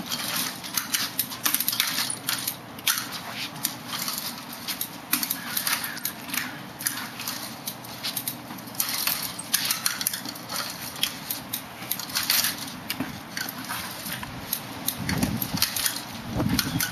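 Wheeled aluminium walker pushed along a concrete walkway in slow steps, with the tennis balls on its back legs scuffing, its frame clicking and rattling, and shoes shuffling between, an irregular run of small scrapes and clicks.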